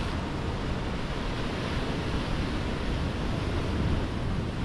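Sea surf washing against the rocks with wind noise on the microphone: an even, steady rushing with no distinct events.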